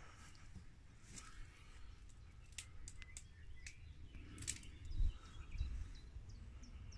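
Twigs snapping and leaves brushing as someone pushes through overgrown shrubs: a few sharp snaps, then a couple of dull footfalls. A bird chirps in short repeated notes near the end.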